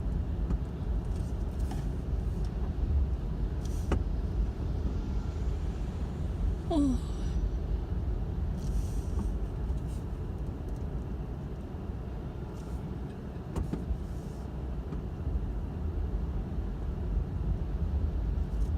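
A car's cabin while driving: a steady low rumble of the engine and the tyres on the road. There is a sharp click about four seconds in and a short falling squeak about seven seconds in.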